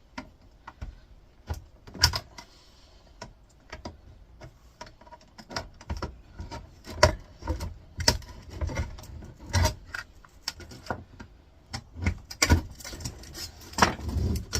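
A screwdriver prying a thin metal frame off a flatscreen computer monitor: irregular metallic clicks, knocks and rattles, coming thicker after the first few seconds.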